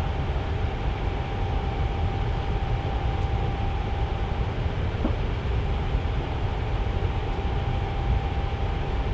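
Tower fan running steadily: an even airy rush, heaviest at the low end, with a faint steady hum from its motor.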